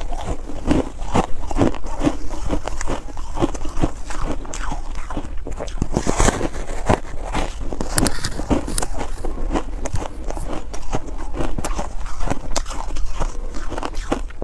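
Close-miked biting and chewing of a frozen block of coloured foam ice: a rapid, irregular run of crisp crunches and crackles.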